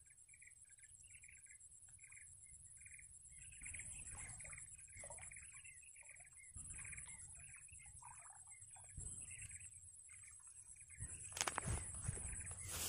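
A bird calling faintly over and over in short, repeated notes, two or three a second. Near the end, a louder rustling comes in.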